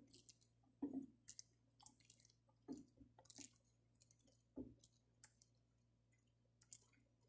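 Faint stirring of milk atole with a wooden spoon in a stainless steel pot while flour slurry is poured in to thicken it: soft swishes and scrapes, with a few dull knocks of the spoon against the pot about a second in, near three seconds and near five seconds.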